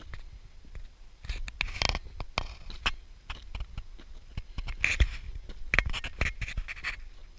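Footsteps crunching on loose summit rock, with clothing and pack gear scraping against a body-worn camera. The scraping comes in irregular bursts, loudest a little over a second in and again from about five seconds in.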